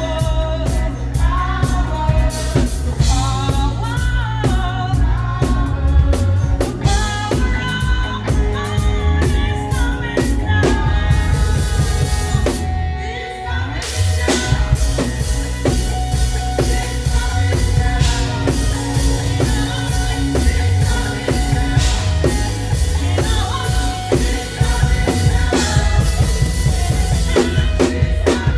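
Live praise band playing: drum kit with a heavy bass drum and bass guitar under singing voices. The band thins out briefly about thirteen seconds in, then comes back in full.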